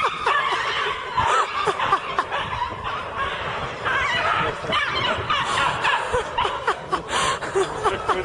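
A person laughing in short bursts, the laughter rising and falling in pitch.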